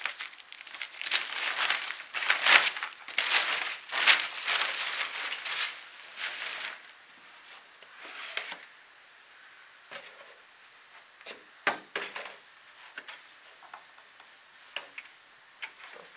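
Foam and plastic packing being pulled off and handled: dense rustling and crinkling for about the first seven seconds, then scattered light knocks and clicks.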